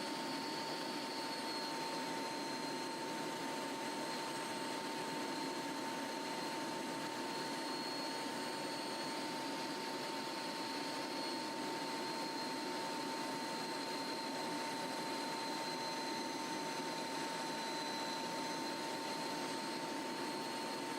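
Steady aircraft noise in flight: an even, unbroken hiss with a constant high whine running through it.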